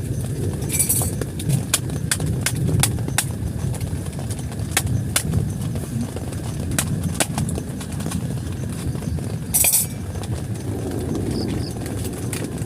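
Heavy rain on a tent: a dense steady drumming, with many separate sharp drop impacts clicking irregularly on the fabric. There are two short hissing bursts, about a second in and again near ten seconds.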